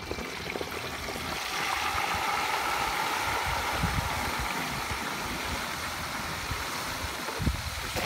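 Whole turkey being lowered into hot oil in a propane turkey fryer: the oil bubbles up and sizzles in a dense, steady hiss that starts as the bird goes in and builds over the first couple of seconds.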